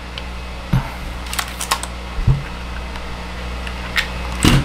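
Scattered handling clicks and knocks as a mechanical keyboard and its parts are picked up and set up, about half a dozen sharp clicks with a louder knock near the end, over a steady low hum.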